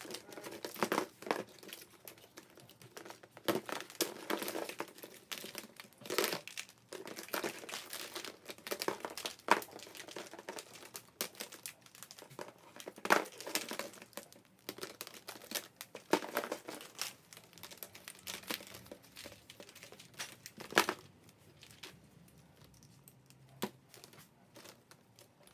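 Hollow plastic Easter eggs strung into a garland, clicking and clattering against one another and the plastic basket as the garland is handled, in irregular clicks and rustles that grow sparser near the end.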